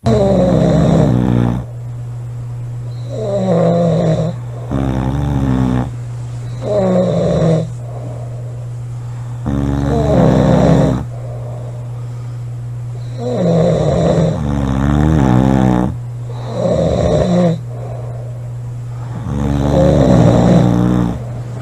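Two people snoring loudly with their mouths open: about nine rasping snores, each a second or two long, some following close on one another, over a steady low hum.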